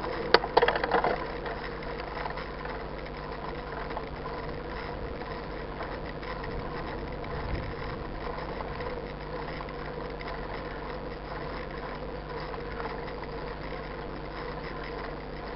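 An engine idling with a steady, unchanging hum. A short burst of knocks and rattles just after the start is the loudest thing.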